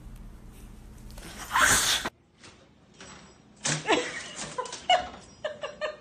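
A cat's short, sharp hiss about a second and a half in, cut off abruptly. Short vocal sounds and quick snickering laughter follow.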